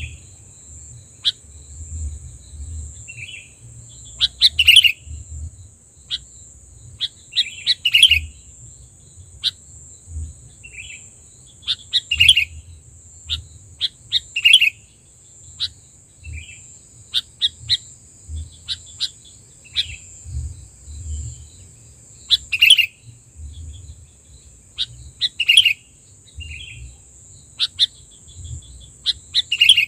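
Sooty-headed bulbul (kutilang) giving short, sharp chirping calls every second or two, over a steady high-pitched insect drone.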